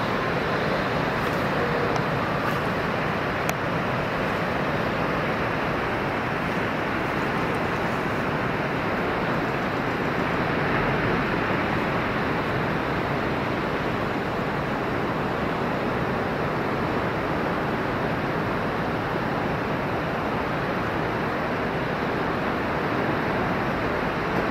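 Ocean surf making a steady, even roar with no single wave break standing out.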